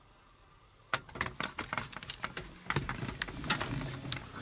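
Irregular clicks and knocks of a video camera being handled and turned around, starting about a second in after a quiet moment.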